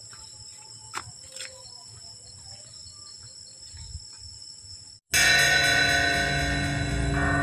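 Night insects such as crickets trill steadily and quietly, with a couple of faint footsteps. About five seconds in, a loud background-music drone of many held tones cuts in suddenly.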